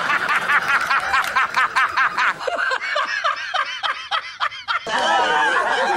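Men laughing hard in quick, repeated bursts. The laughter changes voice about two and a half seconds in and again near five seconds as one laughing clip gives way to the next.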